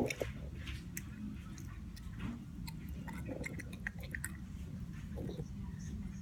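A child chewing a Starburst chewy candy with her mouth open, close to the microphone: a run of irregular wet smacks and clicks.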